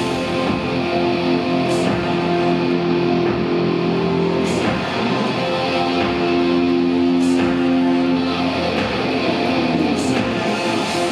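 Live amplified band music: an instrumental passage of guitar with held chords, and a sharp crash about every three seconds.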